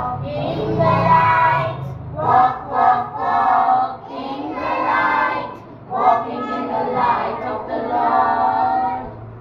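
A group of children singing a song together, in phrases of a second or two with short breaks between them.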